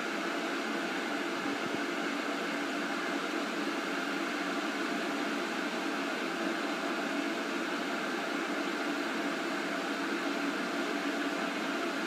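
Beko electric kettle at the boil: a steady, even hiss of boiling water, the kettle still switched on.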